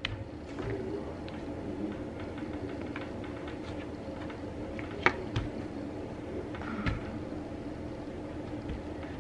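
Hands pressing and spreading soft butter slime on a tabletop, with a few faint taps and squishes, the clearest about five and seven seconds in, over a steady low hum.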